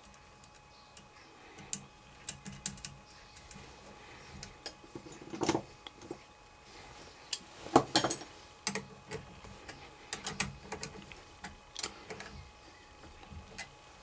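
Irregular small metal clicks and clinks of terminal nuts, washers and wire connectors being handled and fitted onto the terminals of a pre-engaged starter motor solenoid, with a couple of louder knocks about five and eight seconds in.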